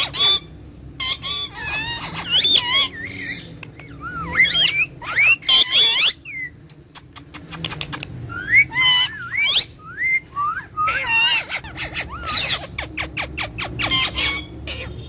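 Parrots chattering and whistling: quick bursts of squawks, chirps and wavering, gliding whistles, with sharp clicks in between.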